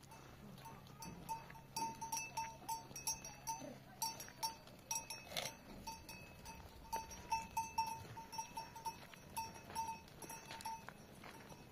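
Small livestock bells clinking irregularly, several strikes a second, all at much the same ringing pitch.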